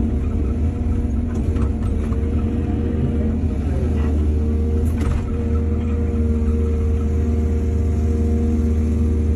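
Diesel engine of a hydraulic excavator running steadily with a deep rumble, its pitch sagging briefly under load partway through. A few faint knocks come about one and a half to two seconds in and again near five seconds.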